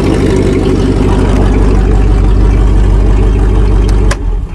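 1998 Dodge Dakota's engine running steadily, now that the pinched crank position sensor wire has been spliced. About four seconds in there is a click and the engine sound drops suddenly as the engine is switched off.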